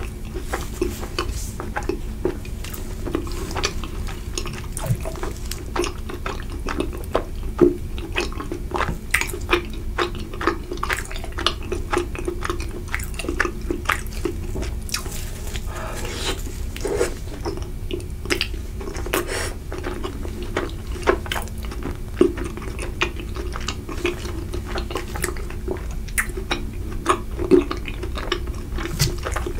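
Close-miked wet chewing and mouth sounds of soft, sticky mochi: a dense run of small clicks and smacks over a steady low hum.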